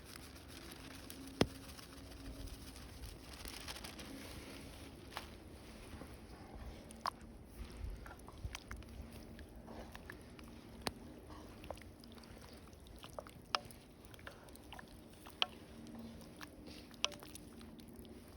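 Campfire crackling under a cooking pot: scattered sharp pops, about one every second or two, over a faint low hum.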